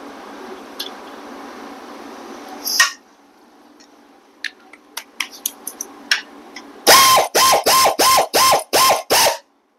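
Hand socket ratchet run quickly in about seven loud clicking strokes as it tightens the small oil bolt, a banjo-type bolt, on the engine. It follows a few light clicks of the socket being fitted, and a steady rushing noise that stops with a clack about three seconds in.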